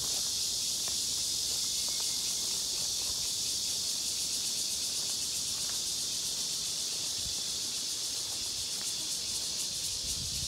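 Steady high-pitched chorus of cicadas buzzing in the trees.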